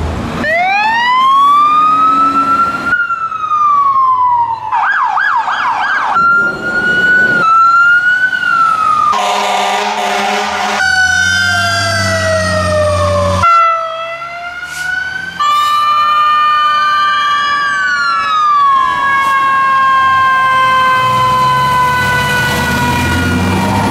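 Fire truck sirens in a quick series of abruptly cut snippets: a wail rising in pitch at the start, a fast warbling yelp about five seconds in, then more wails and yelps sliding up and down. About ten seconds in, a loud horn blast sounds among them.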